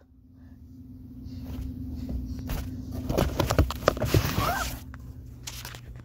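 Rustling, scraping and knocking of a phone being handled with its camera covered, growing louder and busiest about three to five seconds in, over a steady low hum.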